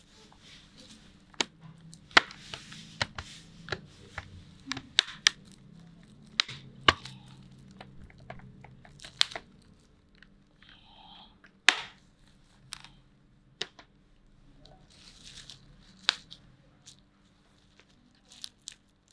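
Scattered sharp clicks and light rustling as a laptop's plastic case and internal parts are handled, a few clicks much louder than the rest.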